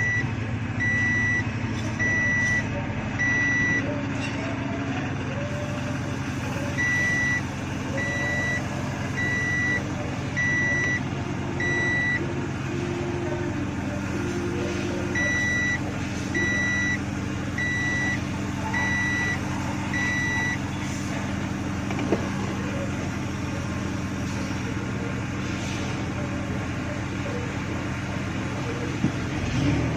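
An electronic warning beep sounds one high tone about every three-quarters of a second, in runs of several seconds with short gaps, and stops about two-thirds of the way through. Under it a Ford F-150 truck engine idles steadily.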